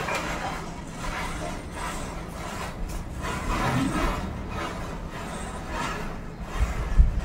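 A chain of standing matchsticks burning along, each match head catching with a fizzing flare one after another every half second to a second. Some low thuds come near the end.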